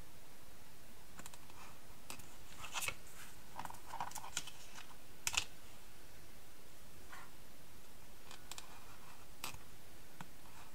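A scattered series of light clicks and taps as a clear plastic ruler is set down and shifted on cardstock on a cutting mat and a hand tool is drawn along its edge.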